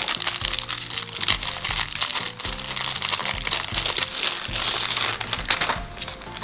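Clear plastic film crinkling as it is peeled off a roll of ready-made shortcrust pastry, over light background music.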